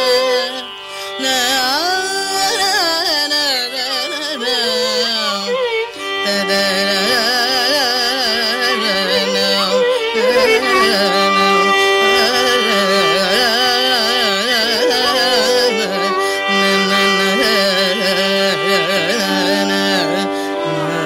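Carnatic classical music in raga Shankarabharanam: a melodic line with sliding, wavering gamaka ornaments over a steady drone.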